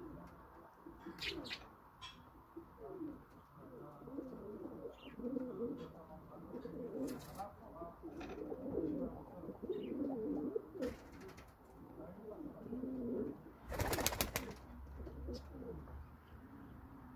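Several Old Dutch Capuchine pigeons cooing over one another in a steady, overlapping chorus, with a few soft clicks. A brief loud burst of noise comes about three-quarters of the way through.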